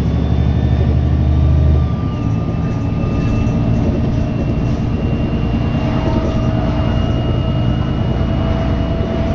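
VDL DB300 double-decker bus running, with a heavy low engine drone that eases off about two seconds in. Steady whining tones run over it; a high whine steps down in pitch as the drone eases, and a lower whine joins about six seconds in.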